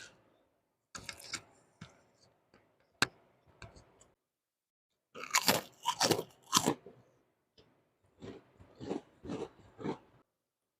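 A person eating close to the microphone: crunchy bites and chewing in three bursts, with short pauses between them.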